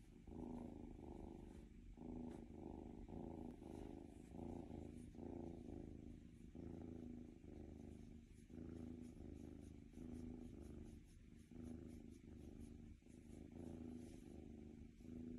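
Tabby kitten purring softly while being stroked and scratched under the chin, a steady low purr that swells and fades in a regular rhythm with its breathing: a contented cat.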